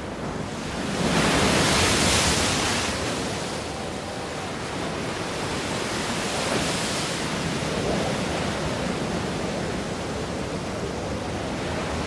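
Sea waves breaking on a rocky shore, a continuous rush of surf that swells loudest a second or two in and surges again a few seconds later.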